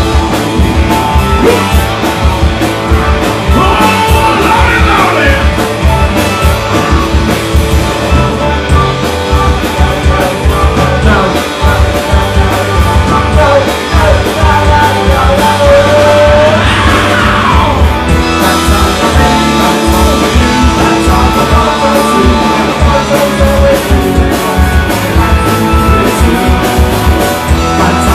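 Live punk rock band playing loud through amplifiers: electric guitar, bass guitar and drum kit on a steady driving beat, with a singer's voice over it at times.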